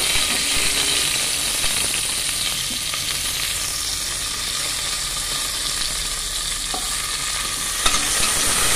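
Curry leaves and mustard seeds frying in hot oil in an aluminium pot, a steady sizzle of a spice tempering (oggarane). A single knock sounds near the end.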